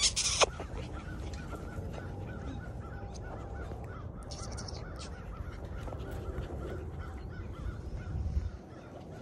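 Birds calling in the background: a steady run of short, evenly repeated calls. A brief rustle comes about four seconds in.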